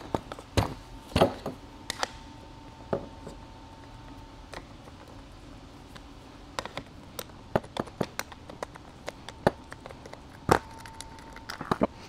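Irregular small metallic clicks and taps of a crescent wrench and a small screw and nut being worked loose from a hydraulic joystick's housing.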